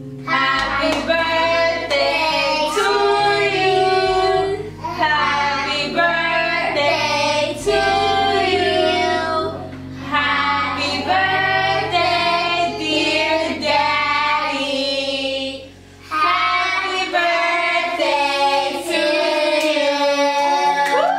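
A song: voices singing phrase by phrase over an instrumental backing with held bass notes, with short breaks between phrases.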